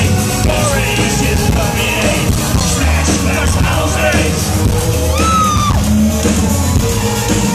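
A live electro-industrial band playing loud through a concert PA, with yelled vocals over dense electronic music.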